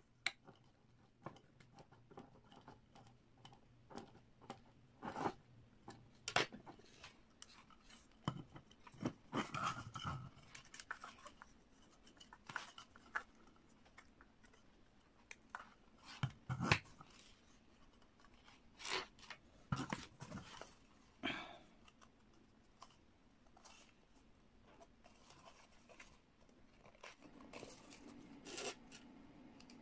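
Irregular clicks, taps and rustling of hands handling and reassembling a plastic siren horn housing, its wires and a screwdriver.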